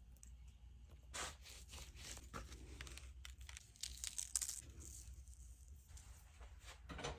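Faint, scattered rustling and crinkling with small clicks, a little louder a second in and again around four seconds in.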